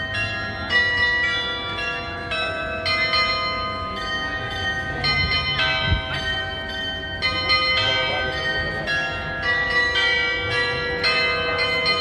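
Many bells ringing together from a display of antique bells hung overhead: a new strike about every second, at several pitches, each ring overlapping and fading into the next.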